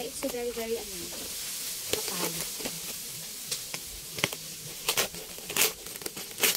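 Plastic bubble-mailer parcel rustling and crinkling as it is handled and cut open with scissors, with sharp crackles and snips in the second half over a steady hiss.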